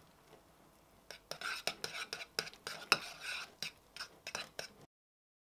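A spoon stirring and scraping thick protein oats in a ceramic bowl, with quick clinks and scrapes against the bowl's sides starting about a second in. The sound cuts off abruptly near the end.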